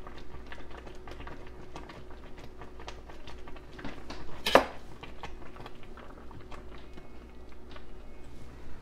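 Kitchen handling sounds: scattered light clicks and clinks of utensils and dishes, with one louder knock about four and a half seconds in, over a faint steady hum.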